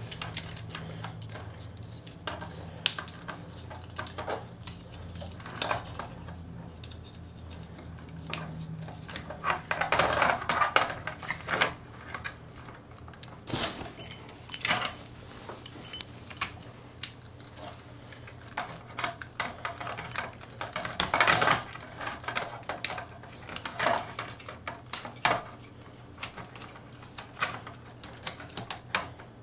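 Clicks and clatter of a transforming robot figure's parts being handled, folded on hinges and pressed together. There are denser bursts of rattling about ten seconds in and again about twenty-one seconds in.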